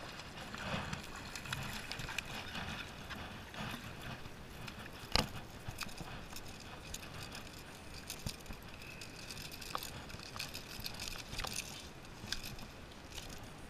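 Faint clicking and rattling of a spinning reel being wound in while a hooked sea bass is brought up to the kayak, with tackle being handled and one sharp knock about five seconds in.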